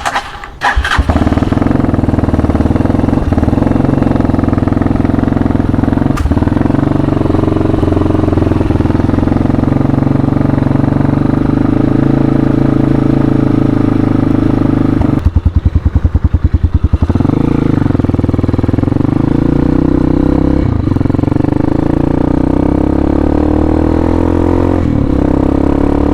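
Hawk 250 single-cylinder 250cc dual-sport motorcycle engine running steadily from about a second in. About two-thirds of the way through it drops briefly to an even, pulsing beat for a couple of seconds, then runs steadily again.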